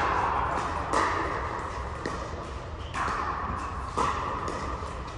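Pickleball rally: sharp pops of paddles hitting a hard plastic ball, with the ball's bounces, about once a second, each echoing briefly in a large hall.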